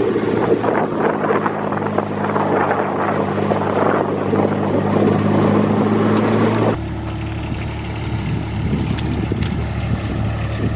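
Side-by-side utility vehicle's engine running steadily while being driven, with a steady hum and rattle; about seven seconds in the engine note drops and gets a little quieter.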